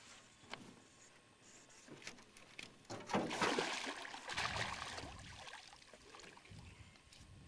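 Hooked largemouth bass thrashing and splashing at the water's surface, loudest from about three seconds in for a couple of seconds, then dying down.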